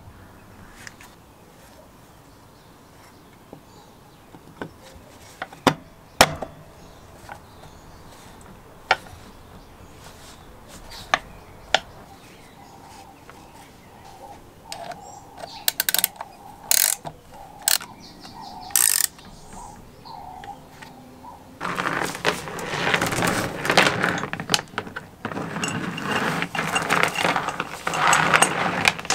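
Scattered sharp metal clicks and taps, then, about three-quarters of the way in, a restored Roller chain hoist worked by hand: the chain rattles through the hoist and its mechanism clicks densely and loudly.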